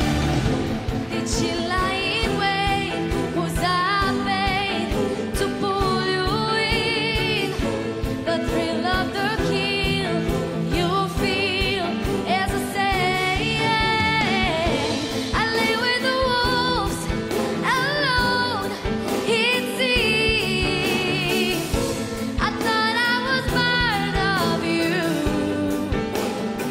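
Female vocalist singing a pop ballad live over keyboard and orchestral accompaniment, her voice with a wide vibrato and sliding runs.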